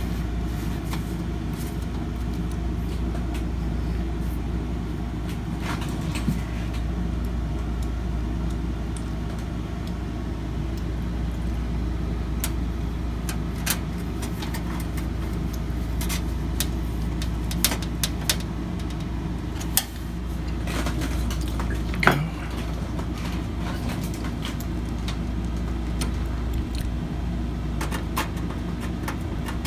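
Scattered clicks and metallic clinks from handling parts in a desktop PC case while a graphics card and its locking plate are fitted, with a sharper knock about 22 seconds in, over a steady low background hum.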